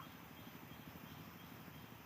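Near silence: faint steady outdoor background noise, with no distinct bird call standing out.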